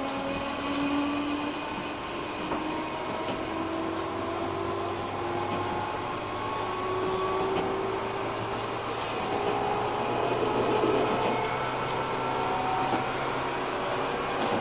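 JR 205 series 600 subseries electric train running, its motor and gear whine rising slowly in pitch as it picks up speed. The whine sits over a steady low hum and the rumble of wheels on rail, with a few faint clicks.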